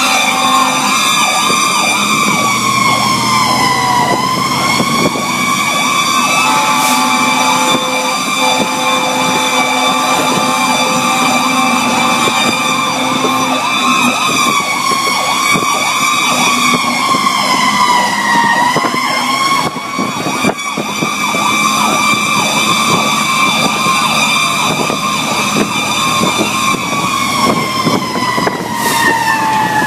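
Fire engine siren heard from inside the cab: a loud, steady wail whose pitch sags and recovers a few times and slides down near the end, with a faster warbling siren layered beneath.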